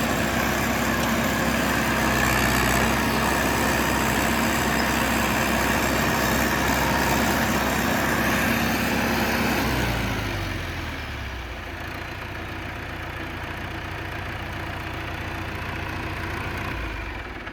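John Deere 450C bulldozer's diesel engine running at raised revs, throttled back about ten seconds in so the pitch falls to a lower, quieter idle, then shut off at the very end and running down.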